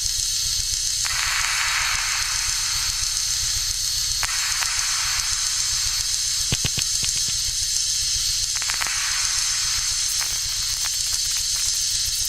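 Synthesized electronic noise from the Moebius Lab sound app: a steady high hiss over a fast low pulsing drone, with swells of filtered noise coming and going and a cluster of clicks about six and a half seconds in.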